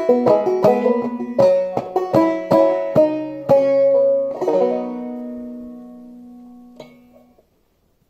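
Banjo played clawhammer style in sawmill tuning, pitched lower than usual: the closing phrase, the picked notes slowing, then a final chord ringing out and fading for about three seconds before it stops just short of the end, with a faint tap near the end.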